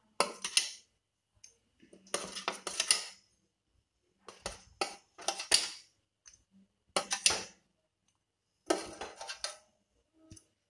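Steel fork scraping and clinking against a perforated stainless-steel steamer plate while steamed chicken pieces are lifted off it, in about five short bursts of clatter separated by pauses.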